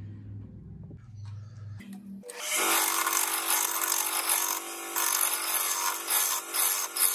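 A wood lathe turning an ash blank with a gouge cutting into it. From about two seconds in there is loud, rough cutting noise over the steady hum of the lathe, after a lower steady hum at the start.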